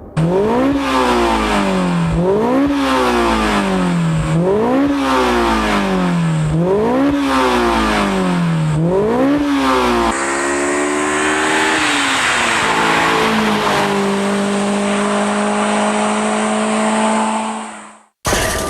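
Honda S2000 inline-four through an aftermarket performance exhaust, revved five times in quick succession, each rev rising sharply and falling back. Then a steadier engine note at held revs with a high whine over it, cut off suddenly near the end.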